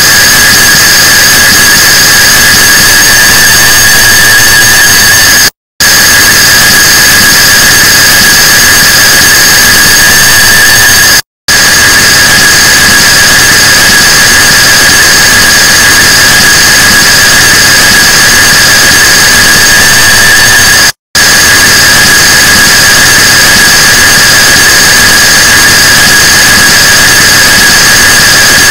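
A clock-ticking sound effect multiplied and sped up so far that the ticks merge into a loud, harsh, continuous noise with steady high whistling tones. It breaks off for an instant three times.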